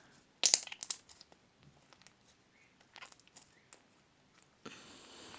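Slime being squeezed and poked by hand: a quick run of sharp, sticky pops and crackles about half a second in, then scattered small clicks, and a steady soft hiss starting near the end.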